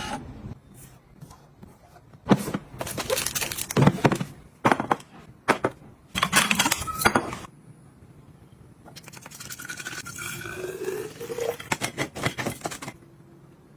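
Kitchen items being handled: clinks, knocks and scrapes of dishes and containers, in clusters, with some rubbing and brief rising squeaks near the end.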